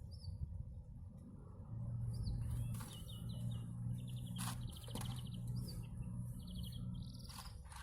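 Small birds chirping in short, quickly repeated runs of high notes, over a low steady hum that grows louder about two seconds in, with a few sharp clicks.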